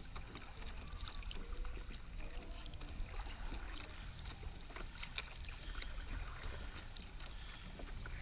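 Kayak being paddled: water trickling and dripping off the paddle blades in scattered small splashes, over a steady low rumble.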